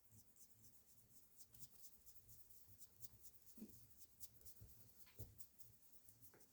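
Faint, light scratching and ticking of picture-hanging wire being threaded back through its loop at a screw eye, with a couple of slightly louder ticks.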